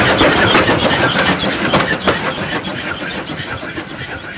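Andrew Barclay 0-4-0 saddle tank steam locomotive passing close and pulling away, with a loud hiss of escaping steam. The sound is loudest at first and fades as the engine moves off.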